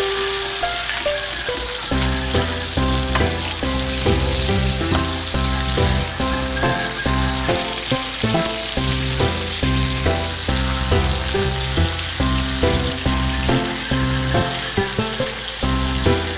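Salted tulingan fish frying in hot oil with a steady sizzle, under background music whose rhythmic bass line comes in about two seconds in.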